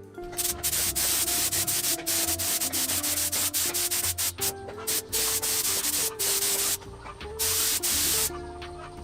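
Aerosol spray filler hissing from a rattle can in repeated bursts, each stopping and starting abruptly, over background music.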